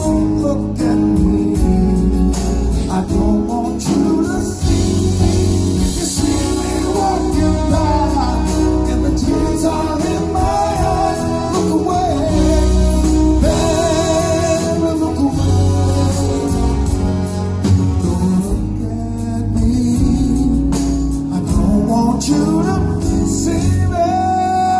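Live horn rock band playing on stage, with singing over keyboards, guitar, saxophone, drums and percussion, heard from the audience seats.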